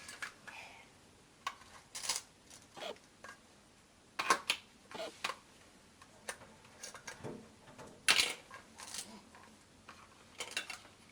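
Toy fruit and vegetable pieces and a toy knife being handled, giving a scatter of light clicks and clatters, the loudest about eight seconds in.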